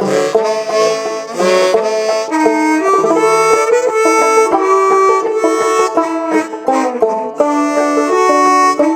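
Instrumental break of an acoustic bluegrass-style song, with a banjo and a lead instrument playing long held melody notes.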